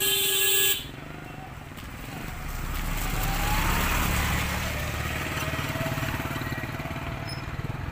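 Motorcycle engine running and picking up speed about two seconds in, its pitch rising, with road and wind noise. At the very start, a short bright electronic chime lasting under a second.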